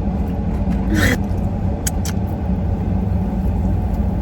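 Steady low rumble of a car engine running, heard from inside the cabin, with a short vocal sound about a second in and two light clicks about two seconds in.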